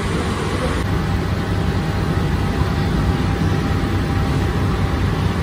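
Steady rumbling roar of a fire-heated rotating bread oven and its burner running.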